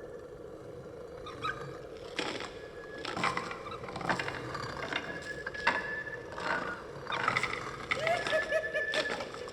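Torture chamber horror sound effect: a steady low drone under scattered sharp knocks and thin high whining tones, with wavering, voice-like wails coming in near the end.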